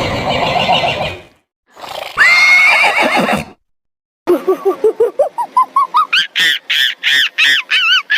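Horse whinnying in a few separate cut-together calls, the last a long run of quick pulses that climbs steadily in pitch.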